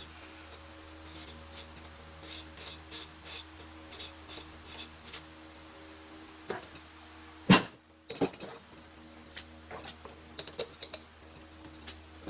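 Faint metallic clinks and taps of tools and parts being handled, with one sharper click about seven and a half seconds in and a few quick clicks near the end, over a low steady hum.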